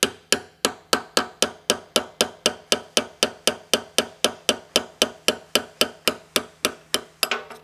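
Hammer striking a steel pin punch to drive a centering pin out of a tractor final-drive (drop box) case. The blows are rapid and even, about three a second, each with a short metallic ring, and they stop just before the end.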